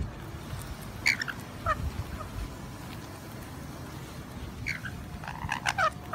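Rainbow lorikeets giving short, shrill screeching calls as they feed: one about a second in, another soon after, then a quick run of several calls near the end.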